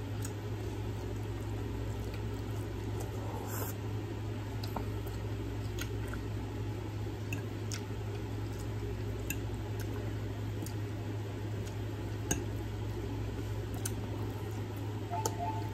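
Chewing food close to the microphone, with scattered light clicks of a metal fork against a plate, over a steady low hum.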